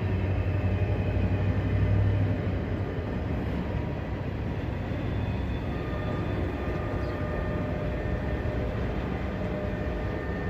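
Mixed freight train rolling past with a steady rumble of cars on the rails. A strong low hum in the first two seconds or so eases off, leaving the even rolling noise.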